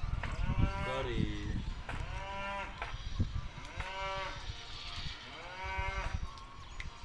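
A farm animal calling four times, short calls that rise and fall in pitch, about two seconds apart.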